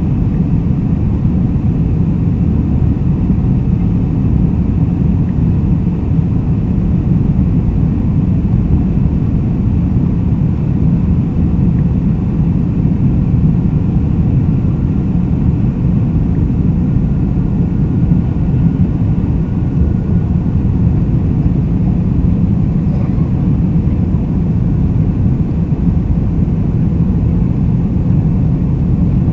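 Boeing 747-400 jet engines and airflow heard from inside the cabin during takeoff, a steady loud low rumble that holds level throughout.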